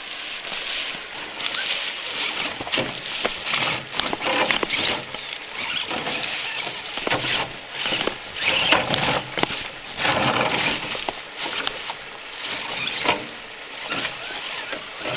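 Radio-controlled scale rock crawlers driving over rocks and dry leaves: an irregular crunching and rustling of leaves with sharp clicks and scrapes of tyres and chassis on stone.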